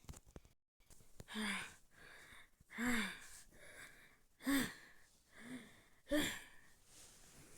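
A person making about five short, breathy vocal sounds like gasps or sighs, each rising and falling briefly in pitch, about a second to a second and a half apart.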